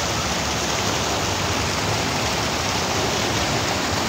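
Steady rush of river water pouring over the edge of a submerged low-water bridge into the pool below.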